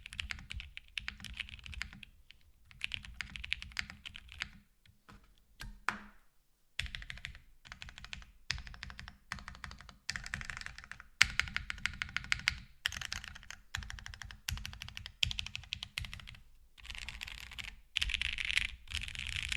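Typing on a custom ai03 Polaris 60% mechanical keyboard with Lavender linear switches, an FR4 half plate, no foam and GMK keycaps. Fast runs of keystrokes are broken by short pauses, with the longest pause about five seconds in.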